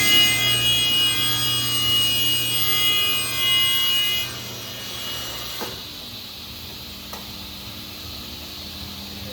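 Vertical band saw cutting, the blade singing with a high-pitched ringing whine made of several steady tones. About four seconds in the cut ends and the level drops. A click follows, then the saw runs on with a quieter steady hum.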